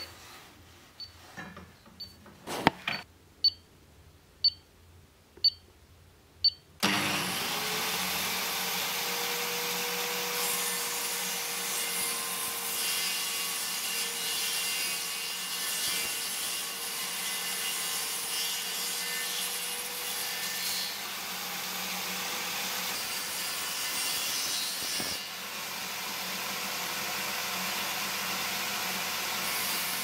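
A few light ticks and a knock as the table-saw fence and setting block are handled, then a circular saw mounted under the bench as a homemade table saw is switched on about seven seconds in and runs steadily with a constant whine, its sound thinning a little near the end.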